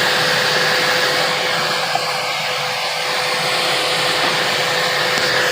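Bissell Lift-Off vacuum cleaner running steadily: a constant rush of suction air with a thin steady hum.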